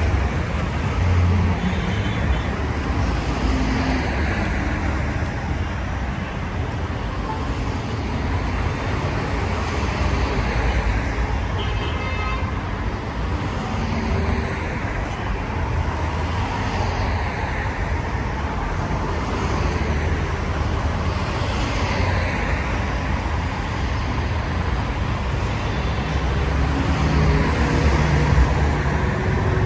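Busy city street traffic: a constant engine rumble with cars passing one after another, each swelling and fading as it goes by.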